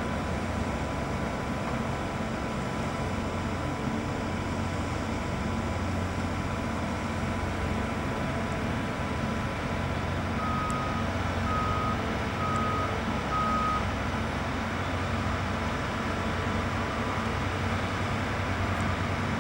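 Heavy diesel construction machinery running steadily at a concrete pour, with a backup alarm giving four short beeps about halfway through.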